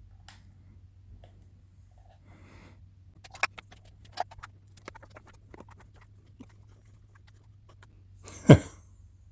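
Handling noise as a Hogue Handall slip-on grip is worked onto a Taurus 9mm pistol's frame: scattered light clicks and taps, with two sharper clicks about three and a half and four seconds in. A heavier thump comes near the end.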